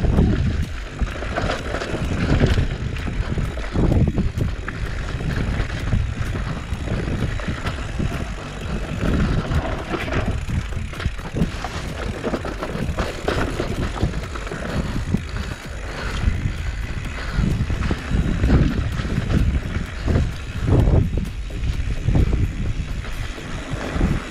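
Mountain bike riding down a rough downhill trail: wind rushing on the microphone and tyres rolling over dirt and stones, with many small rattles and knocks from the bike over the bumps.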